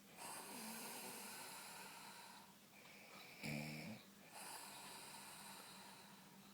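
A woman snoring in her sleep: long airy breaths, with one short, louder, pitched snort about three and a half seconds in.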